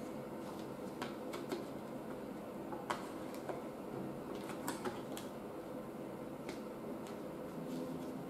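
A CD case and its paper booklet being handled: scattered sharp clicks and taps of the case with some paper handling, over a steady low hum.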